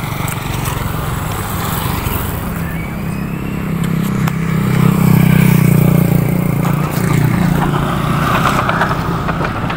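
Road traffic with motorcycles passing close by; the engine hum builds to its loudest about five seconds in, then eases slightly.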